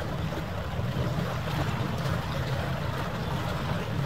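Steady harbour ambience: a low rumble with a wash of noise above it and no distinct events.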